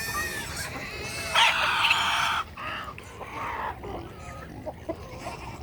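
A mixed poultry flock of geese, turkeys, ducks and chickens calling excitedly in expectation of food, with scattered short calls and one loud, harsh call about a second and a half in that lasts about a second.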